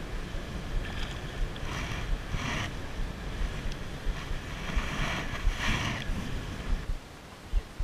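Wind buffeting the microphone, with low thumps and a steady rush of water, and several short hissy bursts higher up; the sound drops in level about seven seconds in.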